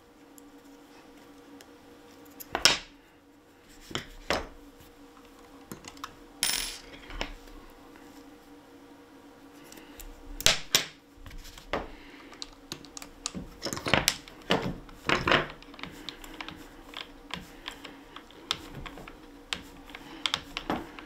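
Small metal parts clinking: hex keys and screws handled and set down on the bench, a dozen or so separate clicks and clinks coming more often in the second half, over a faint steady hum.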